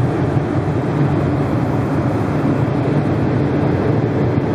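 John Deere 850K dozer's diesel engine idling steadily, a low, even drone.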